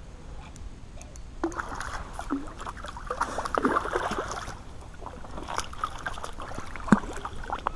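Hooked hybrid striped bass splashing at the water's surface as it is drawn in to the bank, in irregular bursts with a few sharp clicks.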